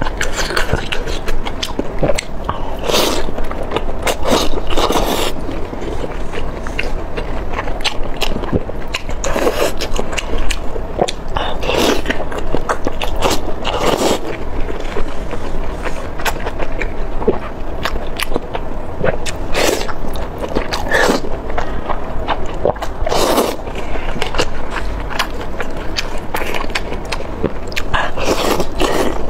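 A person biting and chewing chili-coated oysters close to a clip-on microphone, with mouth sounds recurring every second or two.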